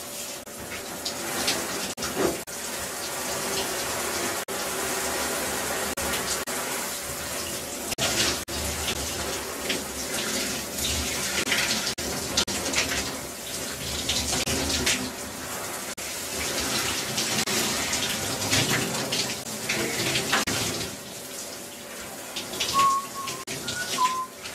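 Running water: a steady spray with splashing.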